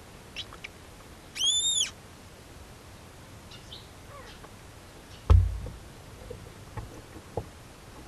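Barn owls in a nest box: a couple of faint high chirps, then one loud, clear high-pitched call that rises and falls over about half a second. About five seconds in comes a heavy thump, followed by a few light knocks, as the adult owl moves about on the box floor.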